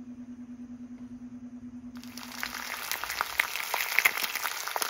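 A steady low hum with a slight pulse. About two seconds in, eggs start sizzling in a frying pan: a dense crackle with sharp pops.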